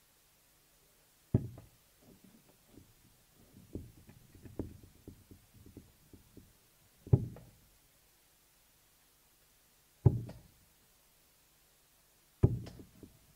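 Steel-tip darts striking a bristle dartboard: one sharp thud about a second in, softer scattered knocks and clicks, then three more thuds about three seconds apart as three darts land in the treble 20, scoring 180.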